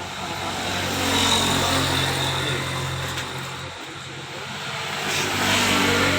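A motor vehicle's engine passing close by. The engine noise swells, dips about four seconds in, and swells again near the end.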